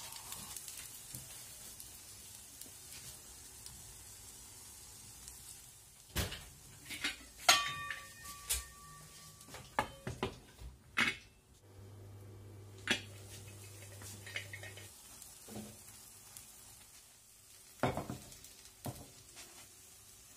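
Faint sizzling of a grated-potato base frying in a pan, then a run of metal clanks from about six seconds in as a stainless steel lid is set on the frying pan, one clank ringing briefly. A few more knocks near the end as the pan is handled on the stove grate.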